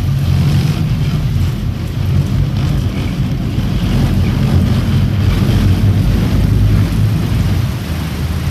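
Boat engine running with a steady low rumble under the churning of its wake, with wind buffeting the microphone.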